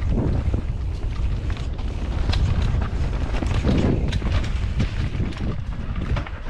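Mountain bike descending a rough dirt forest trail at speed: continuous low wind rumble on the microphone, with frequent irregular knocks and rattles as the tyres hit roots and rocks and the bike clatters.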